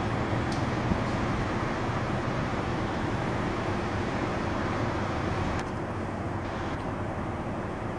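Steady outdoor vehicle traffic noise, a constant rumble and hiss that drops slightly in level about five and a half seconds in.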